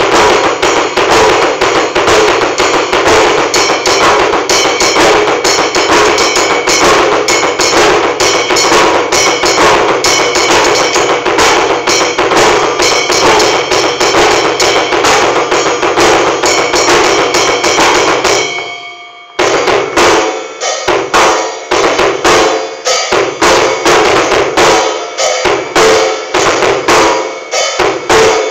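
Drum kit played with a Tama Iron Cobra double bass drum pedal: a fast, continuous stream of kick-drum strokes under other drum hits. About eighteen seconds in it fades and breaks off for a moment, then resumes in a looser, more broken pattern.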